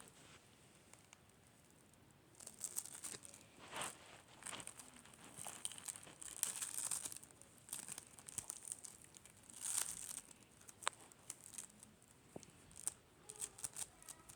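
Slime being pressed and squished by hand, giving irregular crackly clicks and little pops that start about two seconds in.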